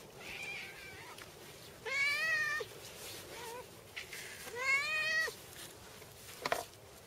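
A group of cats meowing, with two long, loud meows about two and five seconds in, shorter and fainter meows between them, and a short sharp sound near the end.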